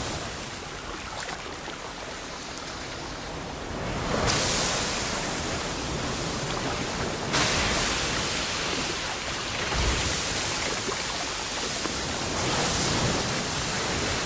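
Ocean surf churning and breaking: a steady rush of white water, with louder surges about four, seven and twelve seconds in.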